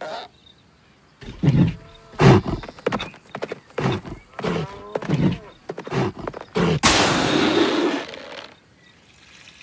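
Cartoon sound effects of a charging bull: a run of heavy thuds, each with a short grunting call, roughly two a second. About seven seconds in comes a sudden loud rushing whoosh that fades away.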